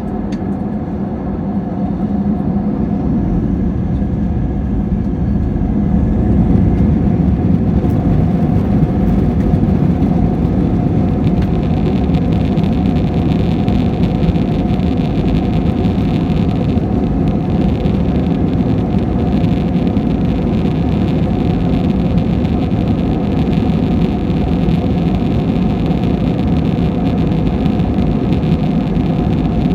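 Airliner engines spooling up to takeoff power, swelling over the first six seconds or so into a steady loud roar with a heavy low rumble and a few steady tones on top.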